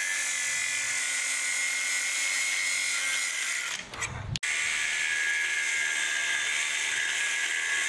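Angle grinder grinding metal, throwing sparks: a steady high whine with a gritty grinding hiss. It winds down a little after three seconds in and starts again at full speed about a second later.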